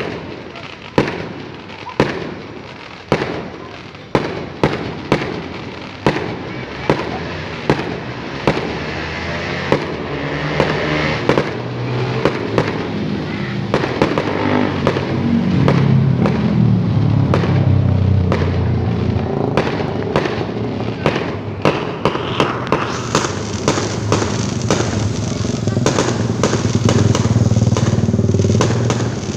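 Fireworks going off: sharp single bangs about once a second at first, then from about halfway through a dense barrage of cracks over a continuous low rumble.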